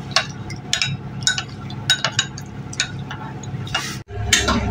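Steel spoon clinking and scraping against a ceramic bowl while stirring custard powder into water, with irregular taps about every half second. Near the end the sound cuts off abruptly and a steady hum takes over.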